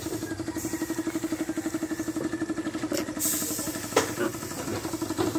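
A small engine idling with a steady, rapid pulse, with two sharp knocks about three and four seconds in.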